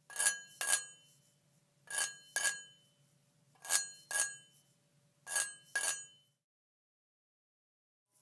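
Sharp ringing clinks of hard objects struck together, in four evenly spaced pairs about a second and a half to two seconds apart, each clink dying away quickly.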